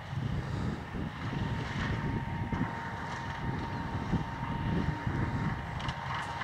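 Hunslet diesel rack locomotive coming down the mountain towards the listener, with a steady high whine that grows stronger in the second half, over gusts of wind buffeting the microphone.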